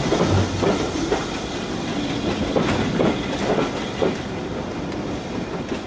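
Railway passenger coaches rolling slowly under a bridge, their wheels clicking and knocking over the rail joints with a steady rumble underneath.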